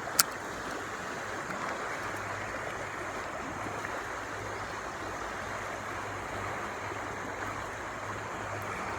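Shallow, fast-moving river water rushing steadily over rocks, with a single sharp click just after the start.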